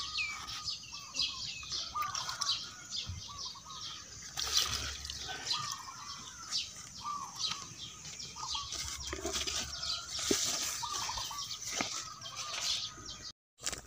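Small birds chirping in quick, high calls several times a second, over the soft splash of fermented cow-dung liquid being poured from a plastic bowl onto the soil.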